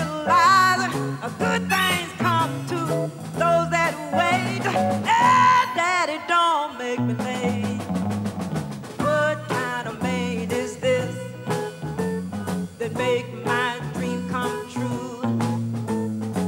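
Chicago blues band playing live, with drums, bass, electric guitar and harmonica behind a woman singing blues.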